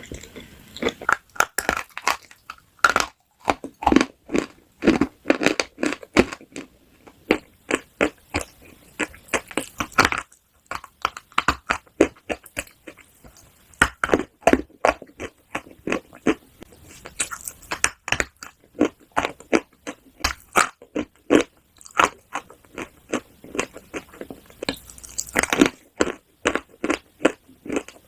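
Close-miked chewing of crisp, crunchy food: rapid, irregular crunches several times a second, with a short pause about ten seconds in and a sharper, crackly bite near the end.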